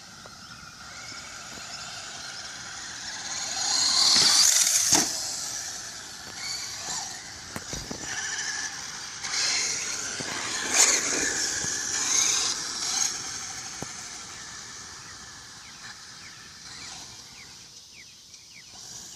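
Traxxas two-wheel-drive RC car with a Velineon brushless electric motor, whining up and down in pitch as it speeds up and slows, loudest about four seconds in. A few sharp knocks come through it.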